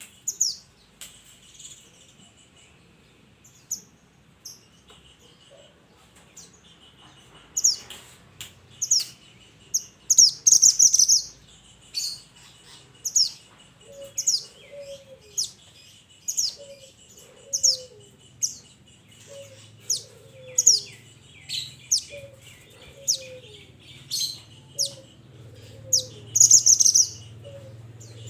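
Minivet calling: a run of short, high, thin whistled notes about one a second, with louder chattering bursts around ten seconds in and again near the end. From about halfway, soft low cooing notes repeat in the background.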